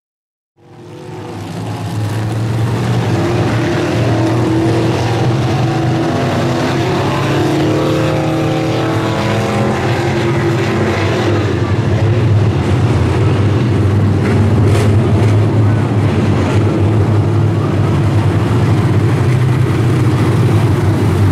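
A pack of dirt-track stock cars running together on the track, several V8 engines droning steadily with their pitches wavering against one another. The sound fades in about half a second in.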